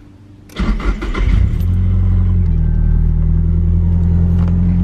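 A car engine is started about half a second in: a short burst of cranking as it catches, then it settles into a steady idle.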